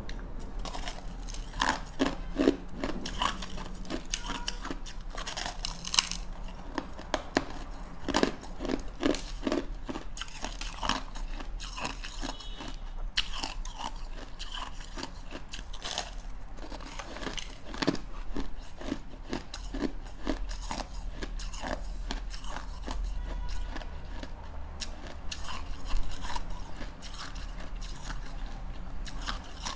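Close-miked crunching of packed shaved ice being bitten and chewed: a long irregular run of crisp crunches, some much louder than others.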